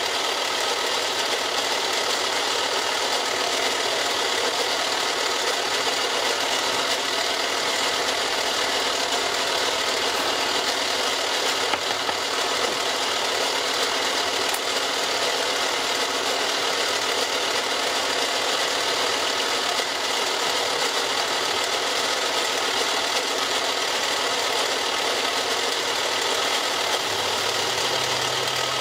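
Milling machine cutting a blue polyethylene block with a large end mill: a steady, dense cutting noise from the spindle and chips. A low hum comes in near the end.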